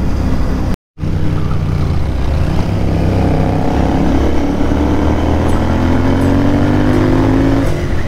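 Royal Enfield 650 parallel-twin motorcycle engine running under way, its pitch climbing steadily as it accelerates from about three seconds in, then falling suddenly near the end. The sound cuts out completely for a moment about a second in.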